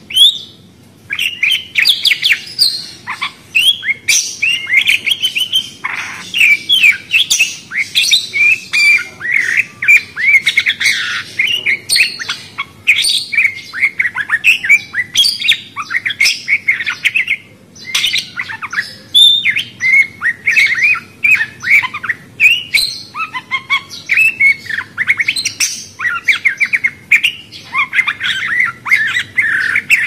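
Small Australian pet parrots chattering together: a dense stream of quick, high chirps and warbling calls, broken by short lulls.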